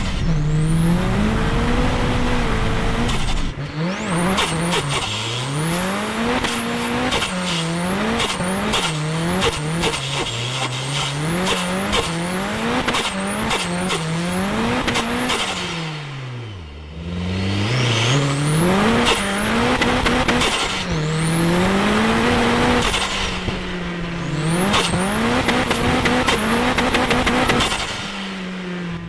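Nissan Silvia S15 Spec R's turbocharged SR20DET four-cylinder heard from inside the cabin, accelerating through the gears. Its pitch climbs with each pull and drops at each shift, and a high whine rises with the revs and cuts off. About halfway through the revs fall low as the car slows, then build again.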